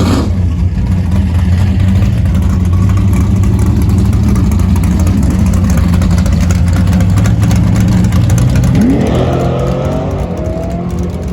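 Chevrolet 409 big-block V8 in a drag car idling steadily, then revved about nine seconds in, with the pitch climbing.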